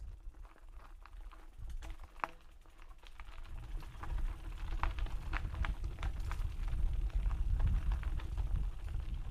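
Mountain bike setting off down a dirt trail: irregular clicks and rattles from the bike and the ground, over a low rumble of tyres and wind on the microphone that grows louder over the first few seconds as it picks up speed.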